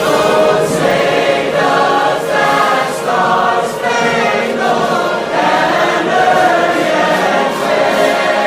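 A choir singing, with held notes that move every second or so.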